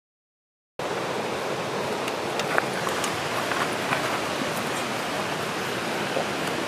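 Steady rushing outdoor noise that starts abruptly about a second in, with a few light clicks and knocks in the middle.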